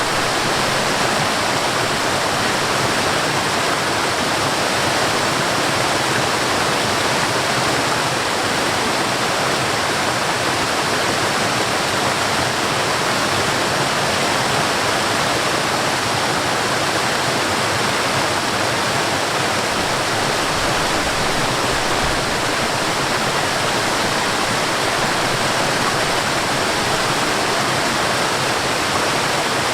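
Water rushing and splashing steadily, as a stream and a small waterfall do: an even, unbroken wash of sound.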